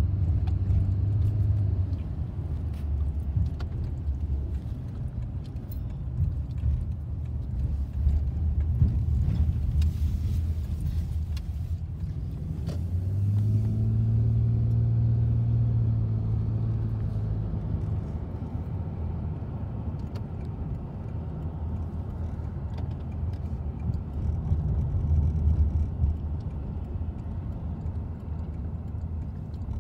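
Car cabin road noise and engine rumble while driving, with a louder steady hum that swells and fades about halfway through.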